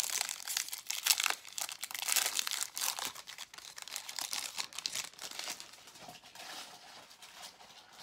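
Wrapper of a 2023 Topps Series 2 baseball card pack being torn open and crinkled by hand, a dense crackling that is loudest in the first few seconds and dies down after about halfway.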